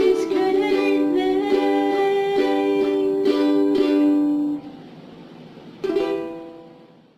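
Strummed string instrument playing a song's final bars: the chords stop about four and a half seconds in, then one last chord is strummed and rings out to silence.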